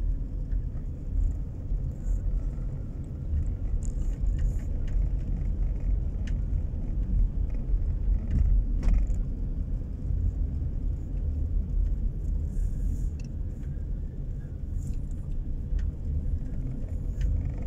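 Road noise inside a moving car: a steady low rumble from the tyres and engine, with a few faint ticks and rattles now and then.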